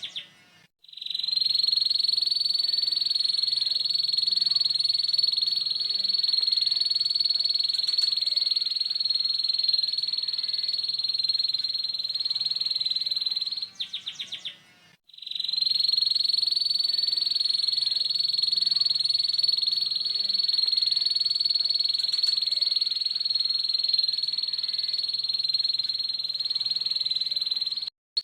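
Canary singing ngeriwik: a harsh, very rapid high trill held unbroken for about thirteen seconds. About halfway it breaks off with a few quick chips and a short pause, then starts again and runs on.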